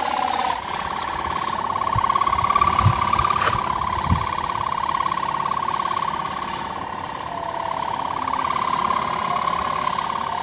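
Kite hummer (sendaren) with a 3-metre mica ribbon buzzing in the wind above a flying pegon kite: a loud, steady, rapidly pulsing drone that wavers slightly in pitch.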